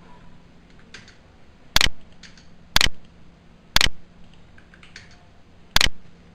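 Sharp clicks from someone working at a computer: four loud ones about a second apart, with a few fainter ones between.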